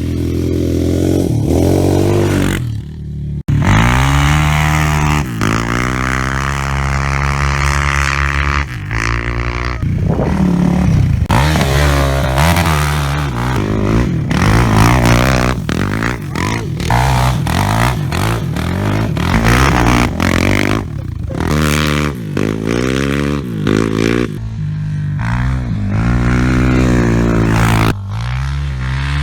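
Sport quads' single-cylinder four-stroke engines revving hard, their pitch climbing and dropping over and over. The sound cuts out briefly about three seconds in.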